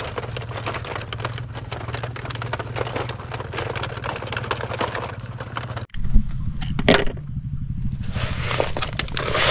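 Plastic toy crane truck rolling over dry dirt, its wheels giving a dense, steady crackle of grit over a low rumble. About six seconds in the sound cuts off sharply and gives way to a different, hissier noise.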